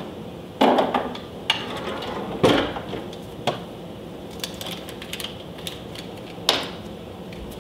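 Knocks and clatter of kitchen utensils on a countertop: a knife tapping a cutting board as a stick of butter is cut, about six sharp knocks with fainter ticks between them.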